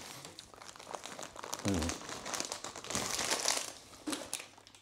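Crinkling of a plastic snack bag as crispy fried onions are shaken out of it onto a bowl of curry, the rustle densest about three seconds in. A short hummed "mmm" comes about a second and a half in.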